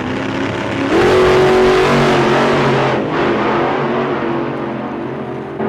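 Small wheels rolling over skatepark concrete: a steady rumble and hiss with humming tones that shift as the speed changes. It grows louder about a second in and breaks off briefly near the middle.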